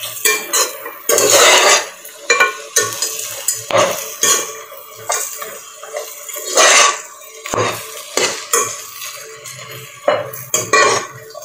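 Metal spatula scraping and clanking against a non-stick pot while stirring onions and mint leaves, in irregular strokes with a few louder scrapes.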